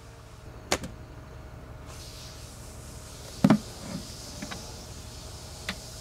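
Knocks and clunks of a beehive being opened by hand: bricks lifted off, the metal-covered lid taken off, and a plastic bucket feeder picked up. A couple of sharp clicks come just under a second in, a dull thump about three and a half seconds in is the loudest, and a few lighter knocks follow.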